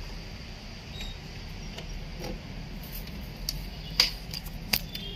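A few short sharp clicks and knocks of a PS2 keyboard plug being handled and pushed into its port on a plastic thin-client box, the loudest two about four and nearly five seconds in, over a low steady hum.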